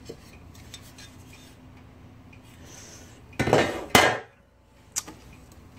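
Hard metal clinking and clattering as typewriter parts are handled: a half-second clatter about three and a half seconds in, a sharp knock just after, and a lighter click about a second later.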